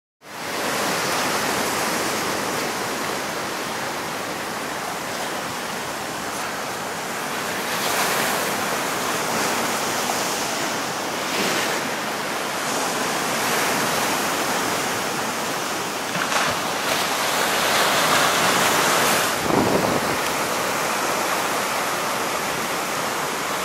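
Sea surf breaking and washing over shoreline rocks: a steady rush of waves, with louder crashes swelling about eight seconds in and again from about sixteen to twenty seconds.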